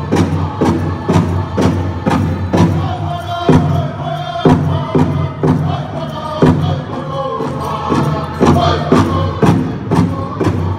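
Powwow drum group song: a big drum beaten in a steady beat of about two strokes a second, with the singers' high voices chanting over it.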